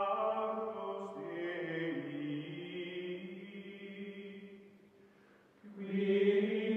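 Outro music of sustained, chant-like choral chords that shift in pitch, dip away about five seconds in, then swell back louder.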